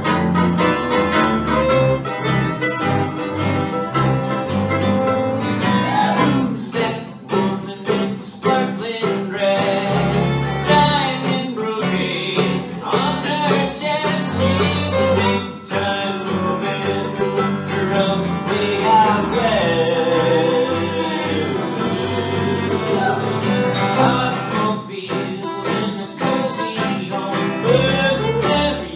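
A live acoustic bluegrass string band playing: fiddle, mandolin, acoustic guitar and upright bass together at a steady tempo.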